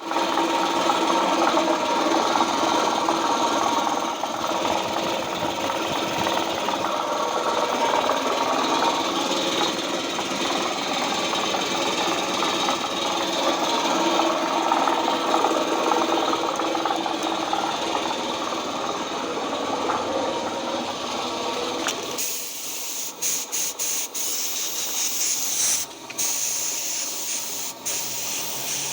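Homemade air compressor driven by a secondhand water pump motor, running steadily with a hum. About 22 seconds in, the running sound gives way to a hiss with several brief breaks.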